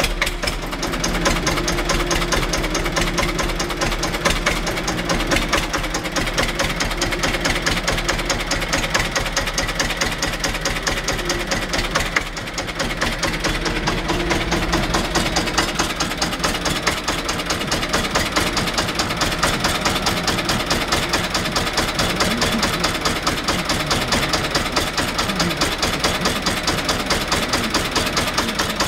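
Deutz D-15 tractor's air-cooled two-cylinder diesel idling steadily just after a cold start, with an even, rapid diesel knock from each firing.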